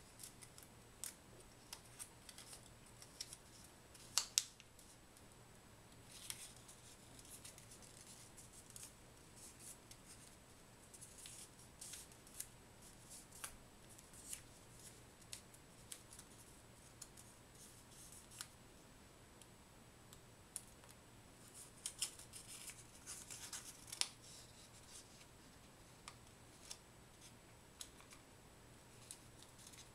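Small sheet of origami paper being folded and creased by hand: faint, scattered crisp crinkles and rustles, with a few sharper snaps, the loudest about four seconds in.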